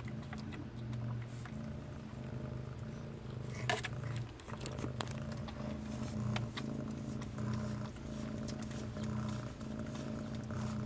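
Orange cat purring steadily close to the microphone, the purr swelling and easing with each breath. A few faint clicks sound over it.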